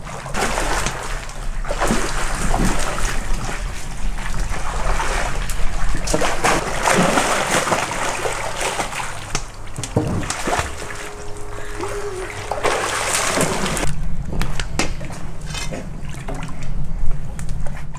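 Water splashing and sloshing as children swim and thrash about in an above-ground pool. The splashing thins out to scattered splashes about 14 seconds in.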